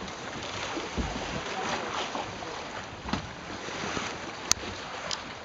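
Sea water rushing and splashing against the hull of an outrigger sailing boat under way, with wind buffeting the microphone. A sharp click sounds about four and a half seconds in.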